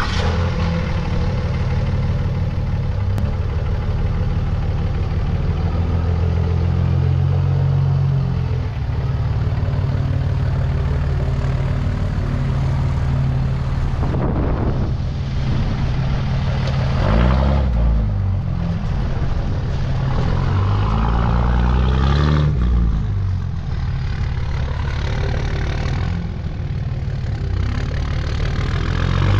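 2006 Dodge Ram 3500 pickup's engine running at a steady idle, then rising and falling in pitch a few times as the truck is driven off across loose dirt.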